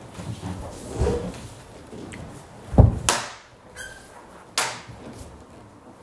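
Hard wooden practice weapons clacking together in a tonfa sparring drill: two sharp knocks about a second and a half apart, the first the loudest and coming right after a heavy low thud.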